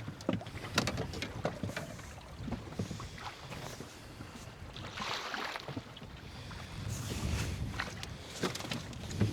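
Wind and water noise around a small fishing boat, swelling a few times, with scattered light knocks and rattles.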